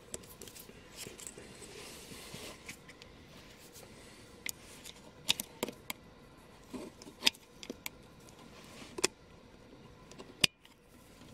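Metal hand tools clicking and clinking, with some light scraping: a scattered run of sharp single clicks, the loudest about seven, nine and ten seconds in.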